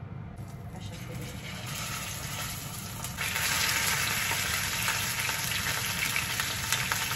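Netted rolls of raw pork frying in hot oil in a grill pan, a steady sizzle that grows clearly louder about three seconds in.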